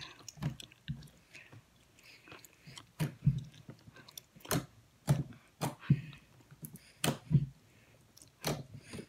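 Hands kneading and pressing a lump of pink and white homemade glue-and-borax slime, making irregular wet pops and squelches every half second to a second.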